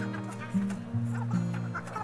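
Background music: a tune of short held notes stepping from pitch to pitch.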